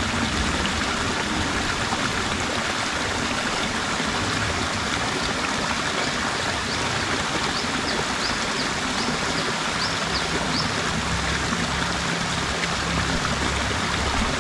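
River water rushing and splashing steadily where a small cascade spills over rocks into a pool. A short run of faint high chirps comes about seven to ten seconds in.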